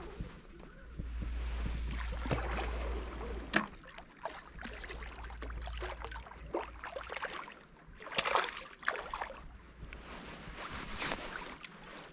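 Faint outdoor noise of wind and water: a low wind rumble on the microphone for the first few seconds, a single sharp click, then a few short soft splashing or rustling bursts.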